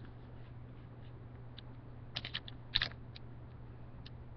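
Thin origami paper crinkling in a few short clusters of crackles as it is folded and creased flat by hand, the loudest a little after two seconds in. A steady low hum runs underneath.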